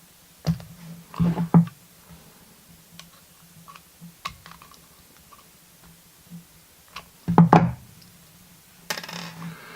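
Pliers working on a small pin-tumbler lock cylinder during gutting: scattered metal clicks and knocks, with the loudest clatter about seven and a half seconds in.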